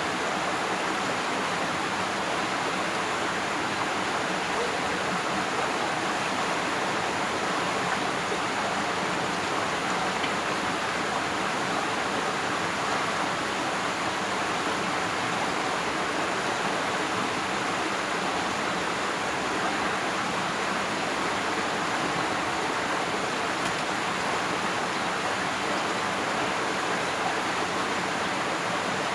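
Water rushing steadily through a ditch or irrigation channel, an even, unbroken wash of noise.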